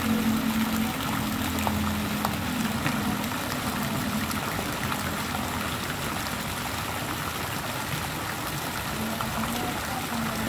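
Steady trickling, running water in a swimming pool, with a faint low hum underneath.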